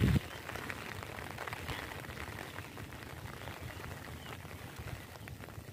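Wind buffeting the microphone with a light patter of drizzle, as an uneven low rumble and hiss. A brief thump comes right at the start.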